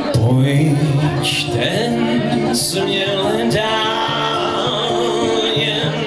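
A man singing a song to his own acoustic guitar, live, with a long wavering held note in the middle.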